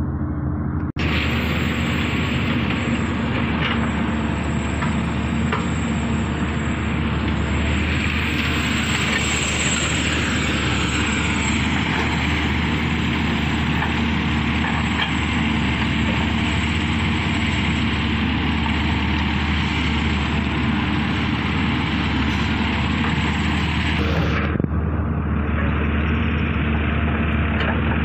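Diesel engine of a Hyundai wheeled excavator running steadily while it digs, with a broad hiss over the engine that cuts out a few seconds before the end.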